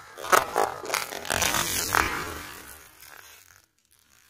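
Plastic snack cup of biscuit sticks and chocolate dip crushed under a car tyre: crackling and crunching with a few sharp cracks over about two seconds, then fading out.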